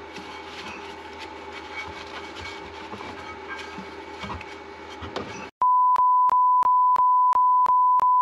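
Faint scattered clicks over a steady hum, then about five and a half seconds in a loud, steady, high electronic beep starts, with small clicks about three times a second, and cuts off abruptly.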